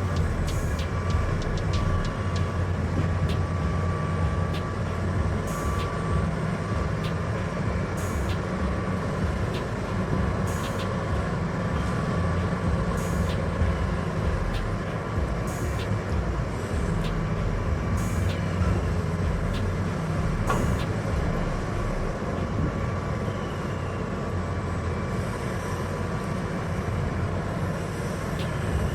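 Heavy diesel mining machinery running steadily with a deep, continuous engine drone, and short sharp clicks every two to three seconds.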